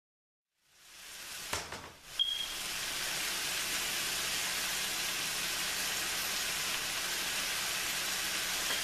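Pork and bell peppers sizzling steadily in a skillet. The sound fades in after a short silence, with two light clicks in the first couple of seconds.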